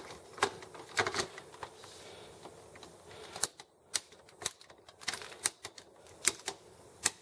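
Sharp plastic clicks and knocks, about nine of them spaced irregularly over several seconds, as a continuous-ink-system cartridge set is pressed and snapped into an Epson XP-950 printer's printhead carriage.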